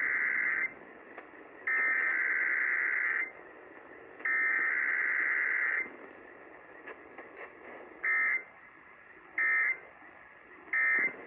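Emergency Alert System SAME data bursts played over the radio as a weekly test. One header burst is ending at the start, then two more follow, each about a second and a half long with about a second between. No attention tone comes between the header and the end-of-message: three short end-of-message bursts follow, about a second and a quarter apart.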